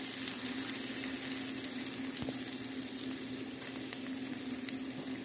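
Sliced turkey pepperoni sizzling in oil in a nonstick frying pan: a steady frying hiss, with a steady low hum underneath and a few faint ticks.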